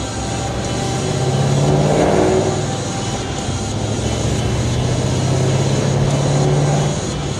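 Ford Mustang GT's 4.6-litre V8 with long-tube headers, an H-pipe and a Pypes Violator axle-back exhaust, heard from inside the cabin. It revs up under acceleration about a second in and eases off, then holds a steady note at cruise until the driver lets off near the end.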